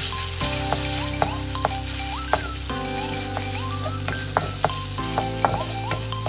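Minced pork and garlic sizzling in hot oil in a wok while a metal spatula stirs it, with several sharp clinks of the spatula against the wok. Background music with sustained chords runs underneath.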